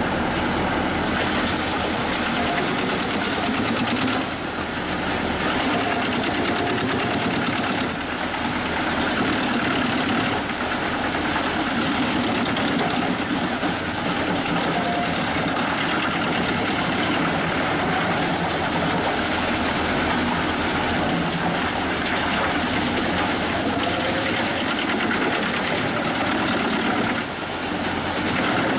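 Pezzolato PTH 1000/1000 G drum wood chipper running off a 360 hp New Holland tractor's power take-off: a loud, steady machine noise, with brief dips in level about four, eight and twenty-seven seconds in.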